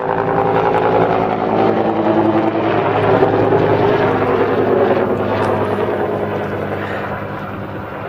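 Helicopter flying, its rotor beating steadily; it starts abruptly and fades a little over the last few seconds.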